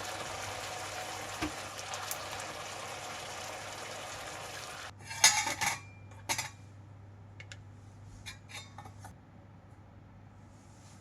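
Kitchen sounds: a steady hiss that stops abruptly about five seconds in, then dishes and metal utensils clattering loudly a few times, followed by lighter clinks.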